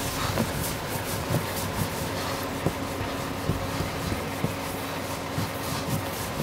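Steady mechanical hum and background noise with a couple of faint steady tones, broken by scattered light knocks.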